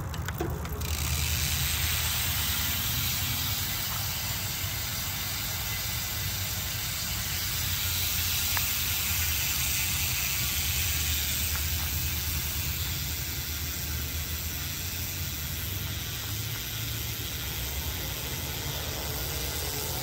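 Rear freehub of a Bontrager Line 30 Comp 29er wheel buzzing steadily as the pedal is turned and the wheel spins. The sound is its 54-tooth ratchet, the quick-engaging kind the rider calls music to his ears.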